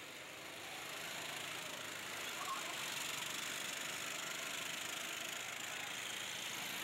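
Several go-kart engines running as a pack of karts passes along the track, a steady buzz that grows a little louder about a second in.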